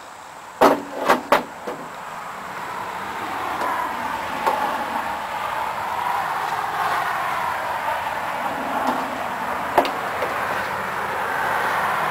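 A few sharp knocks, then a saw running and cutting lengthwise through a log as it is milled into boards, growing gradually louder.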